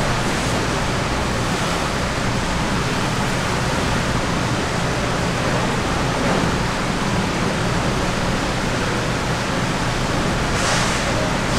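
Steady, even rushing background noise with no beat, and a brief brighter hiss about a second before the end.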